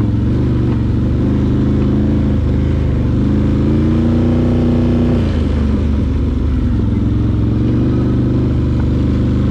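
Can-Am Outlander 850 XT ATV's Rotax V-twin engine running under way. Its pitch climbs for about two seconds in the middle as it revs up, then drops back sharply and settles into steady running.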